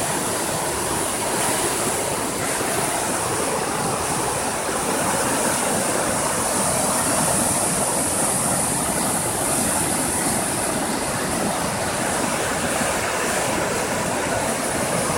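The Birs river in flood, swollen by days of heavy rain: fast-flowing water rushing in a steady, loud roar.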